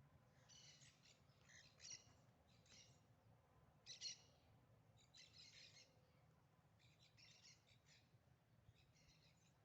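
Faint bird chirping, coming in short bursts of quick chirps about once a second over a low steady background hum.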